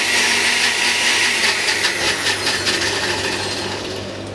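Countertop blender motor running, mixing a smooth liquid mango vinaigrette, then winding down and going quiet near the end as it is switched off.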